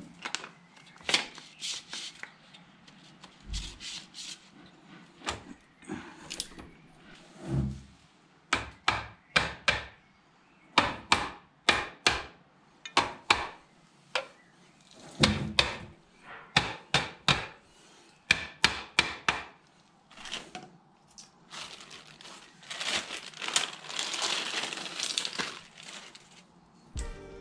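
Sharp metallic clicks and knocks from a socket ratchet and the bolts of a clutch pressure plate being fitted to the flywheel, many coming in quick runs of several clicks. Near the end comes a longer scraping rustle.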